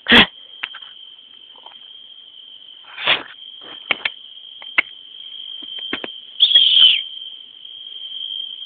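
Crickets chirring steadily on one high pitch, with a few scattered clicks, a sharp knock at the start and a louder short noisy burst about three quarters of the way through.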